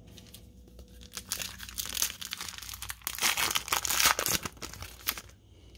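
A Panini NASCAR trading card pack's wrapper being torn open and crinkled by hand: a run of crackling starting about a second in and stopping shortly before the end, loudest around three to four seconds in.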